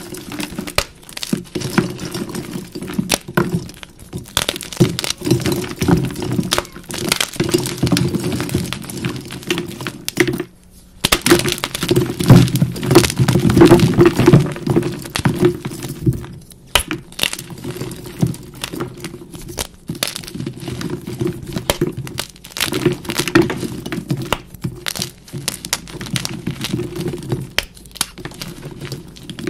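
NEXO gym chalk blocks being crushed and crumbled into powder by hand, a dense, continuous run of crunches and crackles, sped up. It is loudest and thickest around the middle, with two brief lulls.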